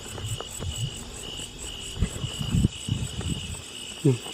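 Crickets chirping in a steady, evenly pulsing high trill, with low irregular rustling and thumps of someone moving over the ground in the middle and a brief voice sound near the end.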